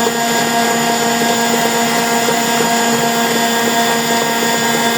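Electric mixer motor running at a steady speed, beating chocolate icing after cocoa powder has been added.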